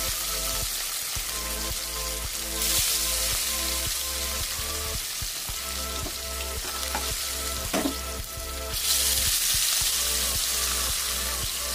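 Turmeric-marinated rohu fish steaks frying in hot oil in a kadai, a steady sizzle that flares louder twice, about two and a half seconds in and again near nine seconds, as more pieces go into the oil. A single sharp click a little before the second flare.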